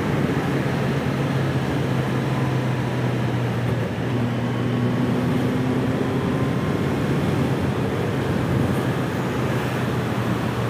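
Kawasaki Z H2 SE's supercharged inline-four running steadily at cruising speed, with a brief dip in the engine note about four seconds in.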